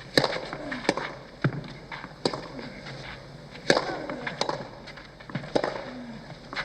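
Tennis rally: a ball struck back and forth with racket strings and bouncing on the court, sharp pops every half second to second and a half, over a steady court-side background.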